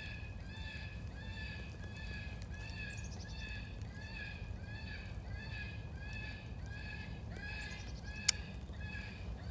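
FoxPro electronic game call playing a looped animal distress sound: the same short, pitched call repeated evenly about twice a second. A single sharp click sounds close by near the end.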